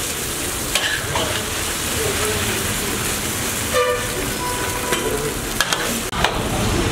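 Chicken noodles sizzling in a hot wok as they are tossed with two metal spatulas, the steady frying hiss broken by scattered clicks and scrapes of metal on the wok.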